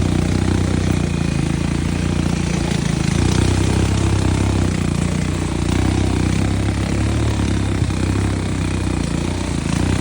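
ATV engine running steadily at a low, even speed.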